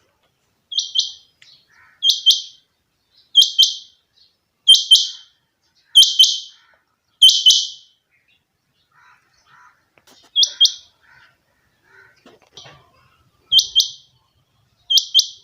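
Rain quail (chinga batair) calling: a series of sharp, high two-note calls, about one every second and a quarter, with a break of a few seconds in the middle before the calls resume. Fainter, lower chirps sound in the gaps.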